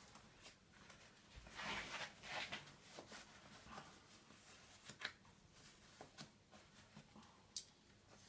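Near silence with faint handling noises: a few small clicks and soft rustles, with no power tool running.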